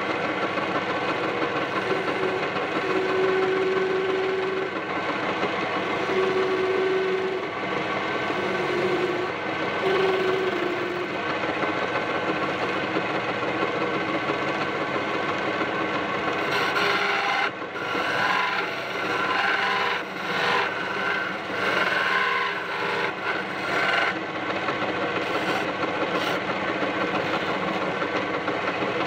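Wood lathe running steadily, with a tool or abrasive rubbing against the spinning wooden spindle. The scraping comes in uneven bursts in the second half.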